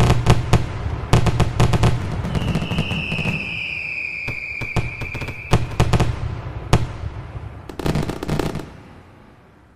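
Fireworks going off: a rapid string of bangs and crackles, with a long, slightly falling whistle from about two to five seconds in. A last cluster of bangs comes near the end, then the sound dies away.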